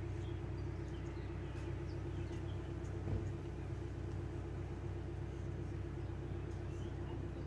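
A vehicle engine running steadily at a constant speed, an even low hum, with a single brief knock about three seconds in.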